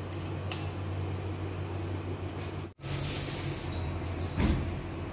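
Steady low hum, with a few light clicks about half a second in, a brief break in the sound near the middle and a single thump near the end.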